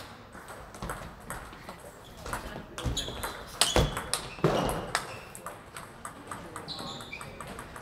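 Table tennis rally: the ball clicking off rackets and the table in quick, uneven succession, with more clicks from other tables in play around it. The loudest knocks come in the middle.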